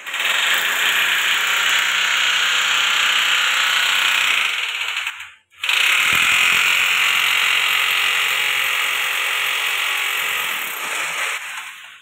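Cordless power drill running steadily as it drills into the wall, in two long runs with a short stop about five seconds in.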